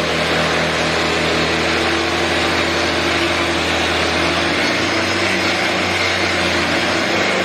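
Angle grinder with a diamond concrete grinding wheel grinding down a concrete floor: a loud, steady grinding noise over the motor's hum.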